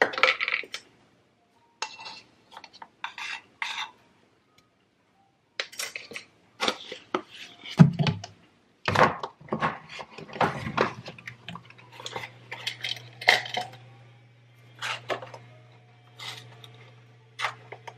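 Kitchen clatter of measuring spoons, a baking-powder tin and a baking-soda box being handled and tapped against a glass mixing bowl and the counter: a run of short, irregular clinks and knocks. A steady low hum comes in about two thirds of the way through.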